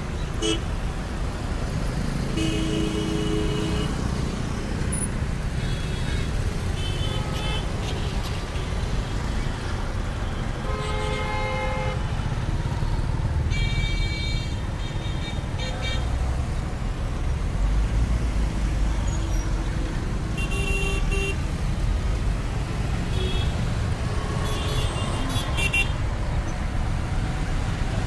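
Steady rumble of city road traffic, with cars, motor scooters and auto-rickshaws passing close by. Vehicle horns honk again and again, short toots every few seconds, with a longer stretch of honking about halfway through.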